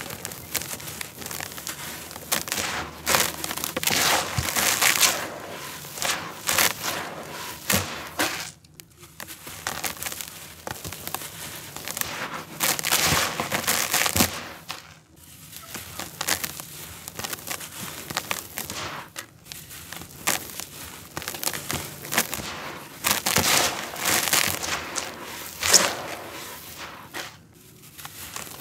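Dry red dirt crumbled and poured by hand, the grains hissing and crunching as they fall back onto loose dirt. It comes in repeated handfuls a few seconds long, with short pauses between them.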